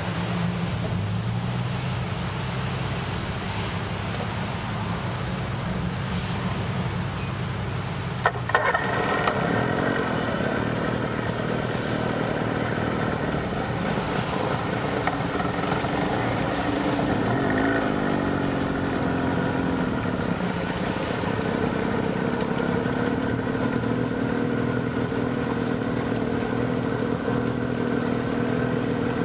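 A small boat's outboard motor starts with a click about eight seconds in and then runs steadily. Its pitch swings briefly up and back about halfway through. Before it starts there is a low steady engine hum.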